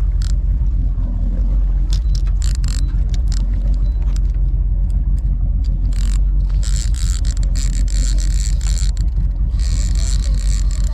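A charter fishing boat's engine running steadily at low trolling speed, a constant low rumble. Sharp ticks are heard throughout, and from about six seconds in a scratchy high-pitched hiss comes and goes over it.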